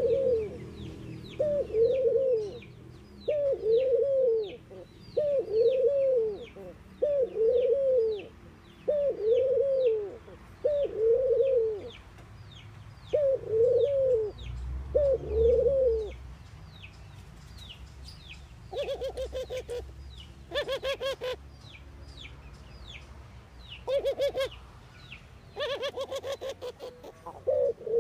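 A caged dove cooing: a run of short arched coos about one a second, then two bursts of rapid stuttering notes in the second half. Thin, high chirps from another small bird sound behind it.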